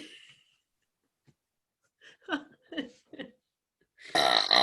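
A woman burping: a string of four short, small burps with falling pitch about two seconds in, then a longer, louder burp near the end.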